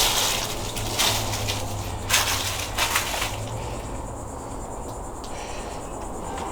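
Footsteps crunching through dry leaves and brush, about one step a second, then quieter after about three seconds.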